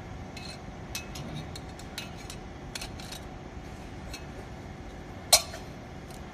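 Light metallic clicks and clinks from metal parts being handled, likely at the exhaust pipe being measured, with one sharper, louder click about five seconds in, over a steady background hum.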